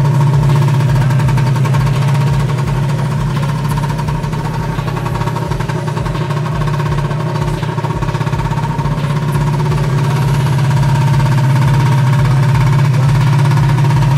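Aprilia SR50 R scooter's liquid-cooled 50cc two-stroke engine idling at a steady pitch, with no revving.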